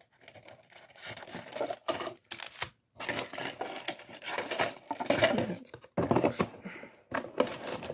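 Foil booster packs crinkling and rustling as they are pulled out of a cardboard Elite Trainer Box, with scrapes and taps of the cardboard in uneven spurts.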